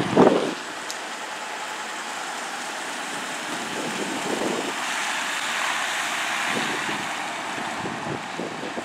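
Emergency vehicles driving slowly past on wet pavement: steady engine and tyre noise with wind on the microphone. There are two short loud bursts within the first half second, and no siren is heard.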